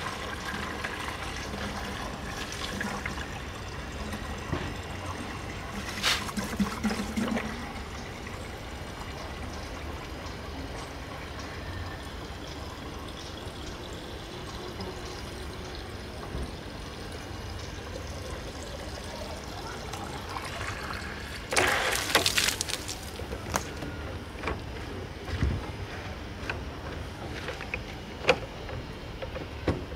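Water from a garden hose running into a plastic water tank as it fills, a steady trickling flow. Brief louder bursts of handling noise come about six seconds in and about twenty-two seconds in, with a few sharp clicks near the end.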